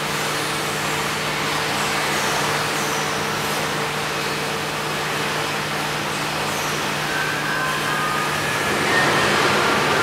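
Steady machine hum and hiss of a robotic car body-welding line at work. Faint high whines rise and fall over it, and a few higher tones come in near the end.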